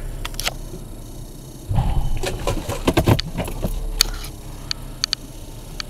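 A Ryko Softgloss Maxx automatic car wash machine running, heard from inside the car's cabin as a low rumble. A louder stretch of knocking and rubbing starts about two seconds in, and a few sharp clicks come near the end.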